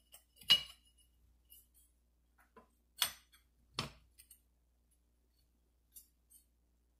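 An AR rifle's upper and lower receivers clicking against each other as they are handled and rocked to check for side-to-side play with a trial shim fitted: a few sharp clinks, one shortly after the start and two close together about three seconds in, with faint ticks between.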